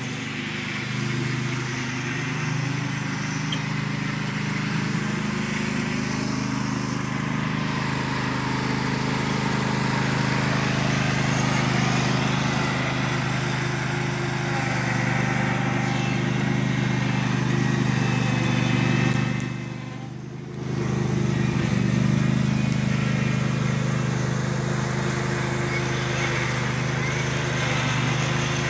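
Ride-on lawn mower engine running steadily as the mower and its rear collector bag pick up fallen leaves. The sound drops away briefly about two-thirds of the way through, then comes back.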